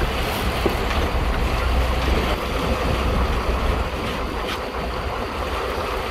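Wind buffeting the microphone over the wash of the sea and a low rumble from the boat, steady throughout and easing a little in the second half.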